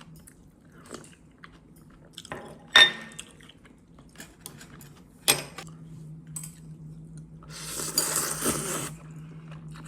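Tableware at a meal: chopsticks or spoons clinking against dishes, with two sharp clinks about three and five seconds in and smaller taps between, then a noisy stretch of about a second and a half near the end.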